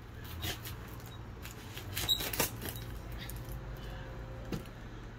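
A kitchen knife cutting through an onion on a cutting board: a few scattered light knocks and clicks as the blade goes through and meets the board, over a steady low hum.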